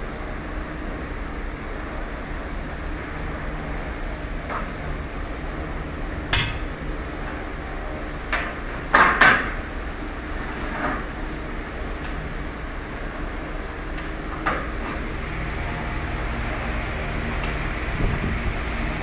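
Scattered metal clanks and knocks from an aluminium bar and tools being handled on a truck trailer's floor, the loudest a quick pair about nine seconds in, over a steady machine hum.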